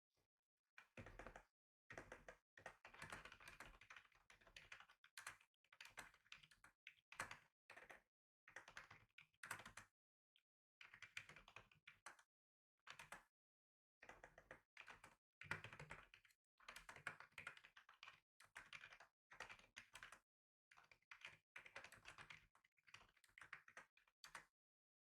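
Typing on a computer keyboard: quick runs of key clicks in bursts of a second or two, with short pauses between them.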